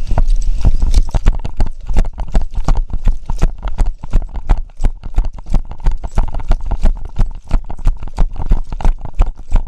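Running footsteps on snow, heard through the runner's body-worn camera: a quick, even run of footfalls.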